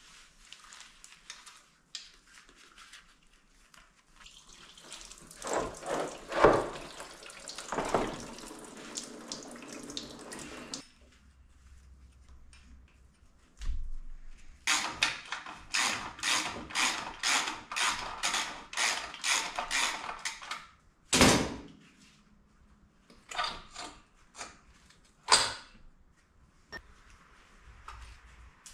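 Hand tools working on a dirt bike engine as it is taken apart: scraping and clicking metal, then a run of about a dozen regular ratcheting strokes, roughly two a second, in the middle, and a few sharp knocks later on.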